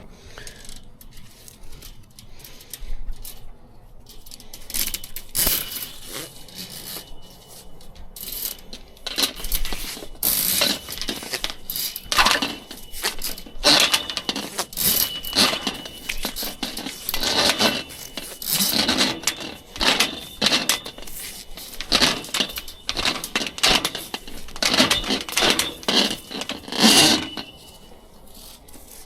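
Irregular metallic clinks, knocks and rattles of plumbing equipment being handled, thickening about five seconds in and thinning out near the end, with a faint steady high whine under the busiest stretch.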